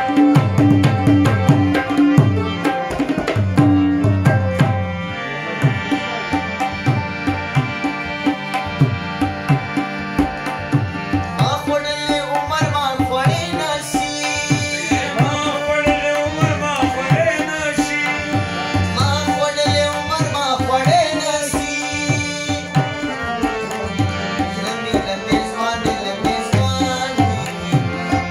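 Tabla playing a steady, quick rhythm under a harmonium's held chords in a Pashto ghazal, with a man's singing voice coming in about twelve seconds in.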